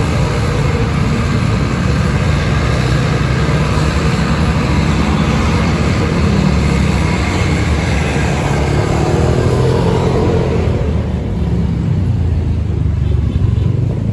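Loud, steady road-vehicle noise passing close: engine rumble with tyre and road hiss. The higher hiss dies away about eleven seconds in while the low rumble stays.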